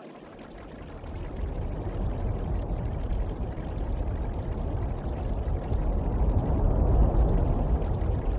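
Steady rushing water noise, like heavy rain or a stream, fading in over the first second or so and then running evenly.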